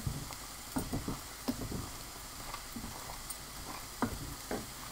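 Diced chicken and bacon frying in a pan: a faint, steady sizzle with irregular small pops and crackles.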